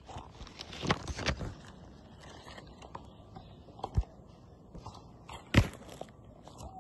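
Smartphone being handled by a long-tailed macaque, heard through the phone's own microphone: scattered knocks and rubbing against the handset. The sharp knocks come about a second in, around the middle, and loudest a little before the end.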